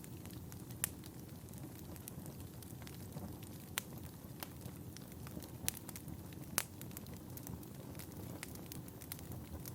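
Firewood burning and crackling: a steady low rumble with scattered sharp pops, the loudest about a second in, near four seconds, and twice between five and seven seconds.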